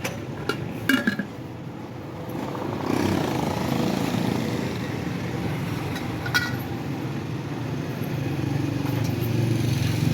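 Street traffic with motorcycle engines running past, building up after a couple of seconds. A few sharp clinks in the first second or so and one more about six seconds in.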